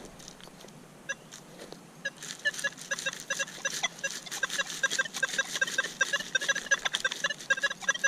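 Handheld metal-detector pinpointer beeping. Sparse at first, then from about two seconds in a fast, steady run of short same-pitch beeps, several a second: the pinpointer is right on top of a buried metal target.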